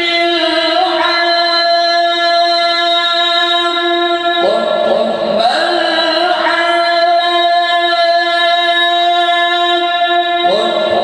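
A male Qur'an reciter chanting in the melodic tajweed style, amplified through a microphone. He holds long, steady high notes, with ornamented turns in pitch about four and a half seconds in and again near the end.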